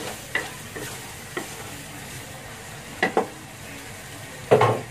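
Spatula scraping and knocking against a wok while stir-frying a sizzling sardine, onion and chilli mixture. Several short sharp scrapes, two close together about three seconds in and a longer, louder one near the end, over a steady sizzle.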